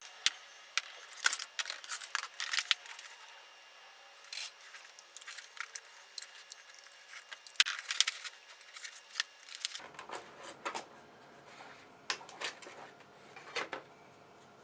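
Packaging being opened by hand: irregular crackles, rustles and sharp clicks as the box and its wrapping are handled and pulled open.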